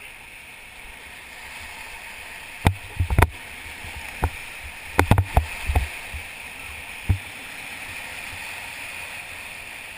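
Whitewater river rushing steadily around a raft, with a scatter of sharp knocks and thumps through the middle, loudest a few seconds in.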